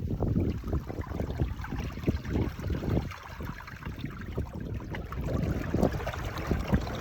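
Small sea waves lapping and sloshing against shoreline rocks close by, in quick irregular splashes.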